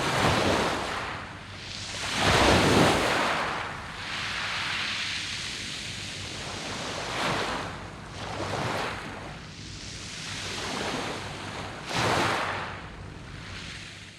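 Sea waves breaking and washing on a pebble beach, rising and falling in several surges with the loudest a few seconds in.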